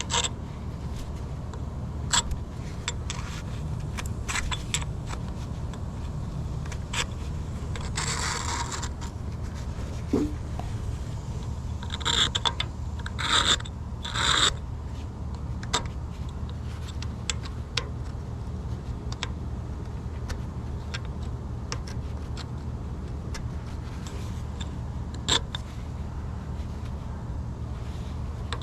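Old paint being scraped off a lathe by hand: short, uneven scrapes and clicks, with a few longer scraping strokes about a third and halfway through, over a steady low hum.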